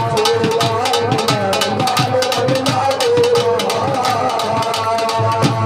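Live Punjabi folk qawwali music: quick, steady drum strokes under a sustained melody line that wavers and glides in pitch.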